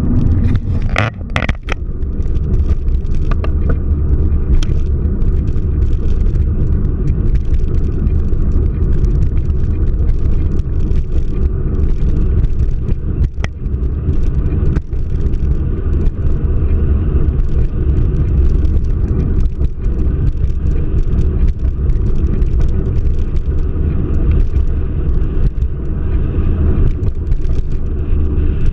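Car driving: a steady low rumble of road and engine noise, with a few brief clicks or knocks in the first two seconds.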